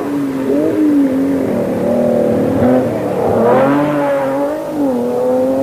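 A 1970s rally car's engine at high revs on a gravel stage, the pitch wavering with the throttle and rising to its loudest as the car passes close about three and a half seconds in.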